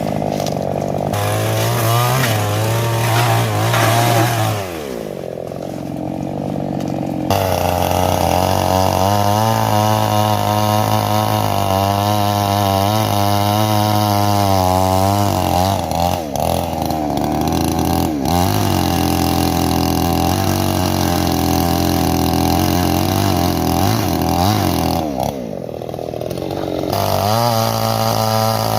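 Petrol chainsaw running at high speed, its pitch wavering up and down. It drops back to a lower speed twice, about five seconds in and near the end, before picking up again.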